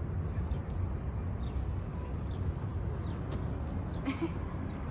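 Street ambience: a steady low rumble with faint, short, high bird chirps scattered through it, and a brief hissy rustle about four seconds in.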